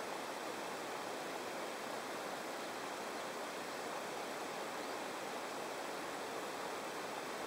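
Steady, even rushing noise with no clicks or tones.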